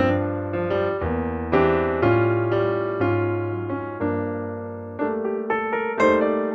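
Background piano music: chords struck and left to ring, with quicker notes near the end.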